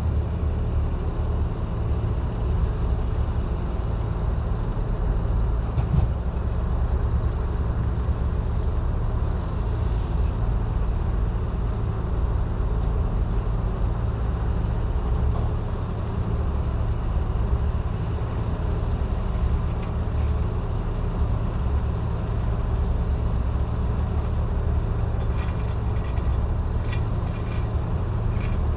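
Heavy diesel engine running steadily with a low, unchanging rumble. A few light clicks come near the end.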